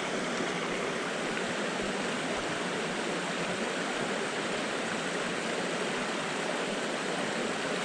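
Mountain stream running steadily, an even rush of flowing water over rocks.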